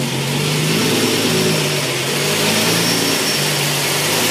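Car engine idling, with its electric radiator cooling fans cutting in near the start and running as a steady rush over the engine hum: the coolant has reached the fans' switch-on temperature of about 189 degrees.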